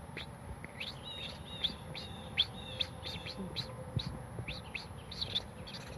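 A series of short, high, bird-like chirps, quiet and irregularly spaced, about fifteen over several seconds.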